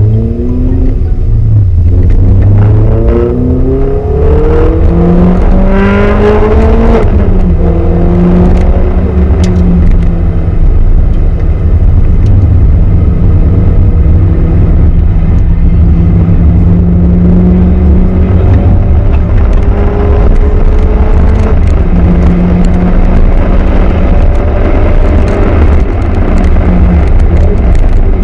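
Renault Clio RS Gordini's four-cylinder engine accelerating hard on track. The revs climb in steps through several gear changes over the first seven seconds, then hold a steadier pitch with slow rises, over a deep rumble.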